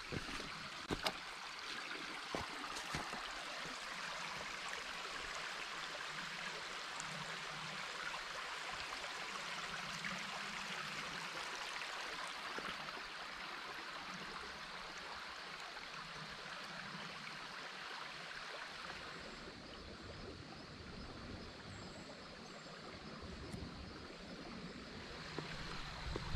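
A stream running over rocks in a steady rush, with a few light clicks in the first couple of seconds. The water sound drops a little and turns duller about twenty seconds in.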